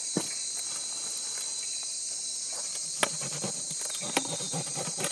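Amazon rainforest insect chorus at night, a steady high-pitched chirring drone, with a few sharp clicks about a second apart near the start and again around three and four seconds in.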